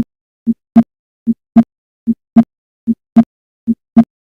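Heart sounds at the aortic auscultation focus: a steady lub-dub at about 75 beats a minute. The second sound of each pair is the louder, as expected over the aortic area.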